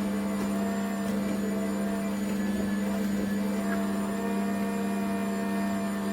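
Electric motor of a cold-press slow juicer running steadily, a constant low hum.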